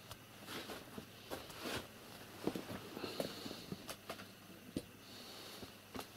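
Soft, irregular scuffling and light thumps of a long-haired ginger cat wrestling with a white kitten on a rug.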